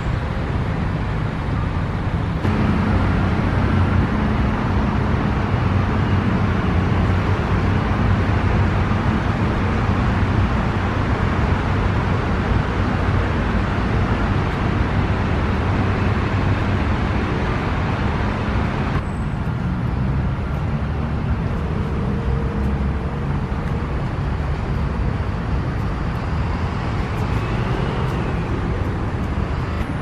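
Steady rumble of distant road traffic, a continuous noise with no distinct events, changing abruptly in level about two seconds in and again a little past halfway.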